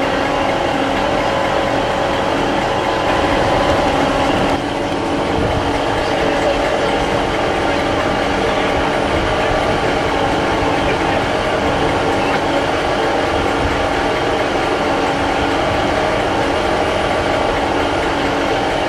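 GWR diesel multiple unit standing with its engines idling: a steady hum with a few held tones over a low rumble. Voices are faint underneath, and the level dips briefly about four and a half seconds in.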